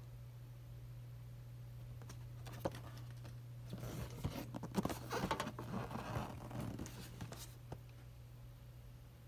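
Cardboard toy box being handled and turned over in the hands: scratchy rustling and light taps of fingers on the cardboard, starting a few seconds in and busiest in the middle, over a steady low hum.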